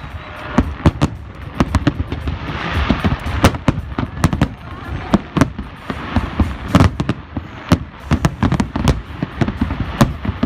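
Aerial firework shells bursting in a rapid barrage, many sharp bangs every second.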